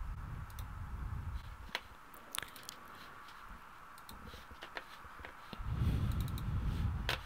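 Computer mouse clicking, a few single clicks spaced a second or more apart, over a faint steady hum and a low rumble that swells near the end.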